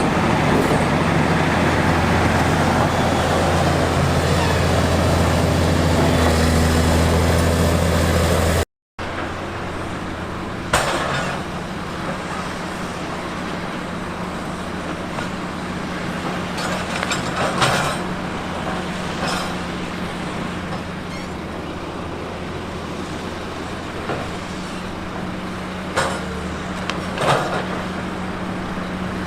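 Diesel engine of heavy earthmoving equipment running steadily and loud. After an abrupt cut about nine seconds in, it runs on quieter and steady, with a few sharp knocks; two of them come close together near the end.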